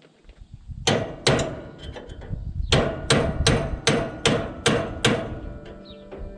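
Hammer blows on a punch against the steel sickle bar of a combine header, metal on metal with a short ring: two blows, a pause, then a steady run of about seven at roughly two and a half a second.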